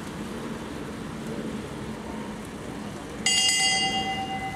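A bell is struck once about three seconds in and rings out with a clear metallic tone that slowly fades, over a low steady background of the open-air track. In an elimination race a bell like this is rung at the track to mark the laps.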